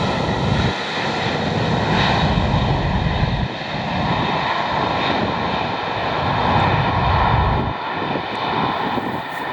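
Boeing 767-300ER's twin turbofan jet engines at takeoff power: a loud, steady roar with a high whine from the fans over an uneven low rumble.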